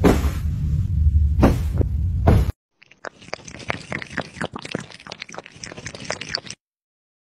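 A loud low rumble with a few sharp thumps, then, after a short silence, a black kitten lapping water from a glass: a quick, irregular run of small clicks that stops near the end.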